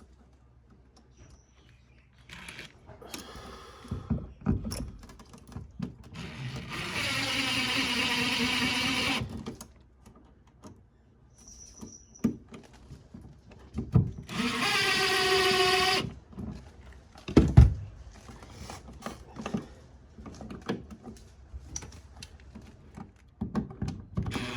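Power drill running twice, about two seconds each time, its pitch rising as it spins up, with handling clicks and rustles in between.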